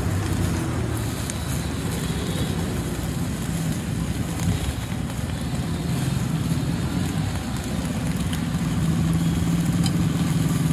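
Street traffic: motor vehicle engines running in a low steady hum that grows louder near the end, with a few faint clicks.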